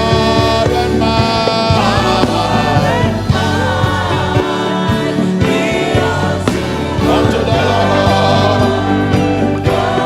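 Gospel worship music: voices singing over sustained instrumental chords and a steady bass.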